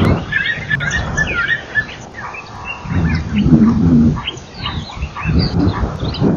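Many birds chirping and calling with short, quick whistled notes, while a low pitched rumble rises up twice, about three seconds in and again near the end, louder than the birds.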